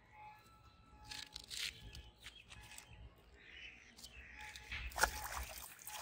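Faint outdoor rustling, then a sudden click about five seconds in followed by a hooked fish thrashing and splashing at the surface of the pond as it is pulled in on a bamboo pole.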